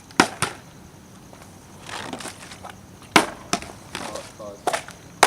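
Sharp clacks and slams on a hard floor from someone attempting tricks. They come in pairs: two at the start, two a little past halfway, and a quick cluster near the end.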